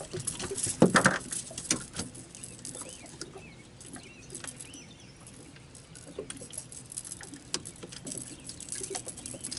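A bird chirping several short notes, among scattered clicks and knocks, with a louder knock about a second in.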